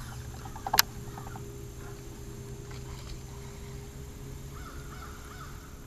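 A single sharp click about a second in, over quiet open-air ambience with a faint steady low hum. A faint, short, stepped bird call comes near the end.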